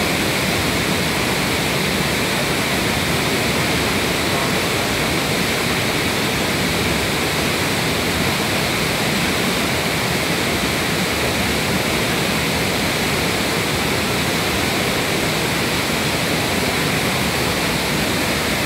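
Waterfall and rushing mountain stream: a steady, unbroken rush of water.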